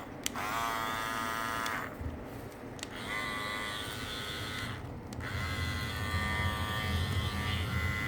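Andis Master cordless hair clipper buzzing, switched off and on again three times with a brief spin-up after the first start. Its cover has just been bent to sit snugly in its groove, to cut the vibration noise.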